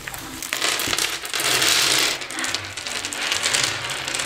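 Crinkly plastic candy bag rustling and being pulled open, with a clatter of small jelly sticks spilling onto the tabletop. The sound is a dense crackle of many small clicks, loudest a little over a second in.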